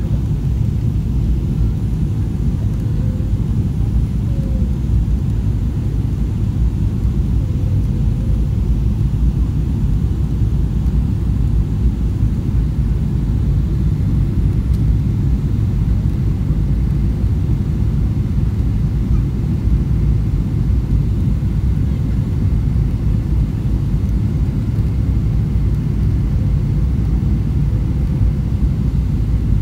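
Airliner cabin noise: a steady low rumble of the jet engines and airflow, heard from inside the cabin.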